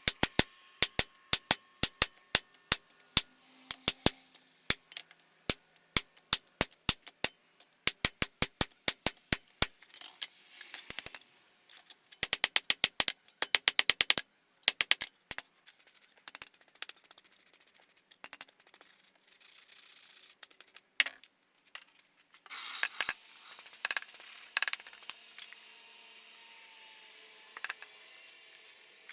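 A run of sharp strikes, about three to four a second, then irregular knocks and stretches of hissing, rubbing noise, typical of working steel in a knifemaking shop.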